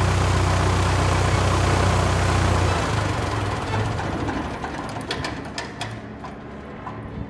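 Piper Archer II's Lycoming four-cylinder engine idling with the cowling off during a leak-check ground run after an oil change. About three seconds in it is shut down, and the engine note dies away as the propeller winds down, with a few clicks as it comes to a stop.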